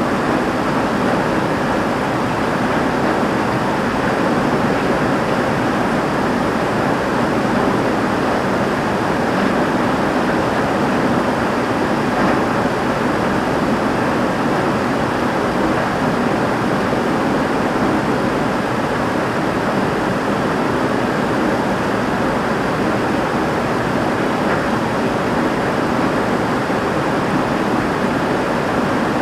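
Heavy rain drumming on a roof, with water pouring off it, a steady, loud, even rush that does not change.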